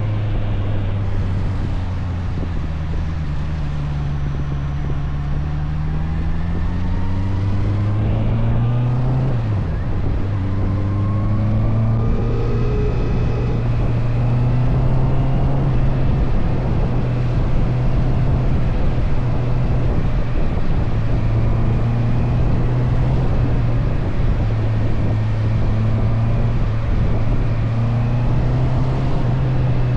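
Motorcycle engine running under way, its pitch rising and falling with throttle and gear changes, with a sharp dip and recovery about nine seconds in. Wind rushes over the microphone.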